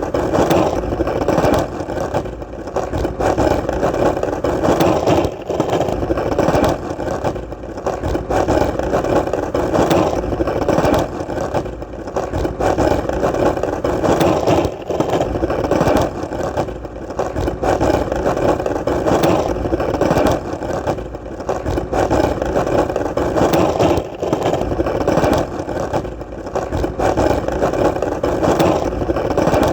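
Skateboard wheels rolling on hard ground: a continuous rumble that swells and dips every couple of seconds.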